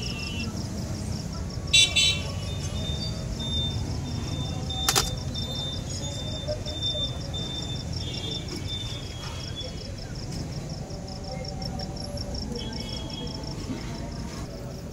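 Busy street ambience: a steady low rumble of traffic and background voices, with several short, high vehicle horn toots, the loudest about two seconds in. A single sharp click comes about five seconds in, over a faint, fast, high-pitched pulsing.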